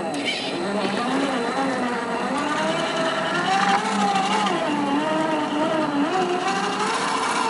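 Electric motor and gear drivetrain of an RC4WD Trail Finder 2 scale crawler whining as it climbs rock, the pitch rising and falling with throttle and load.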